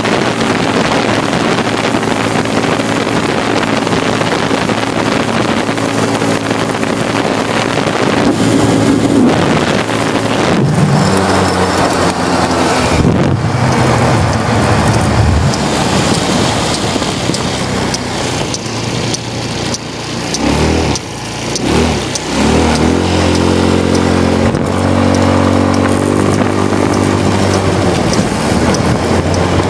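Small engine running steadily under a broad rushing noise. Its note sinks and rises about halfway through, then drops away briefly and picks up again about two thirds of the way in.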